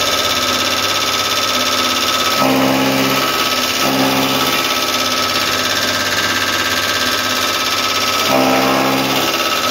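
Electric chaff cutter running and chopping straw: a steady mechanical whine with a constant high tone. A deeper hum swells in briefly three times.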